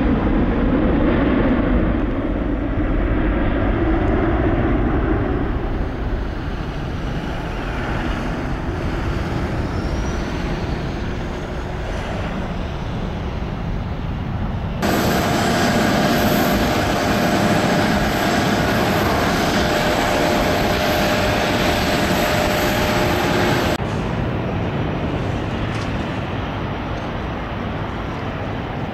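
Jet airliner engines: a twin-engine widebody climbing away after takeoff, its steady rumble slowly fading. About halfway through the sound cuts abruptly to a louder, hissier jet noise with a steady whine, and near the end cuts again to a quieter jet rumble.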